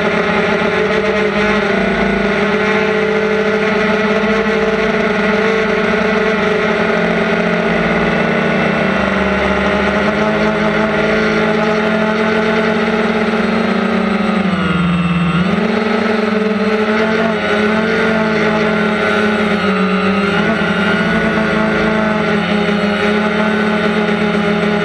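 DJI Phantom quadcopter's electric motors and propellers whining steadily, recorded by the GoPro mounted on the drone. The pitch sags slightly about nine seconds in and dips sharply about fifteen seconds in, then returns as the motor speed changes.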